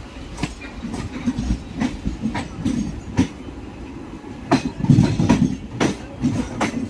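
Train wheels running over rail joints and points: a low rumble with irregular sharp clattering knocks, heaviest a little past the middle.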